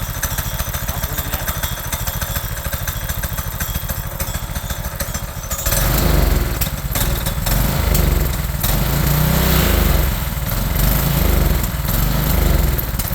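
HISUN 6.5 HP single-cylinder four-stroke go-kart engine running, then opened up about six seconds in and revving louder, rising and falling unevenly. The engine has just had its valves adjusted and a new spark plug, and its carburetor is still not tuned.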